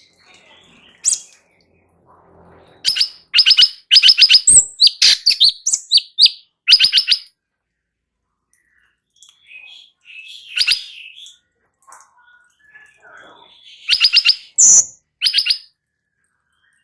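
Cucak cungkok singing: loud runs of rapid, sharp chirps in two bouts, with softer warbled phrases between them.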